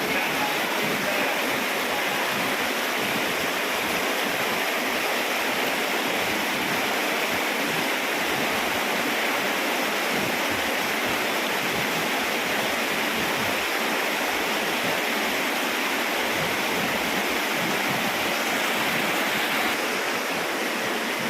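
Steady rushing of a waterfall, a little quieter near the end.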